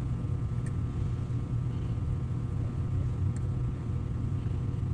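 Steady low background hum with a few faint light clicks, likely from a hand tap and tap wrench being turned in the aluminium marker body.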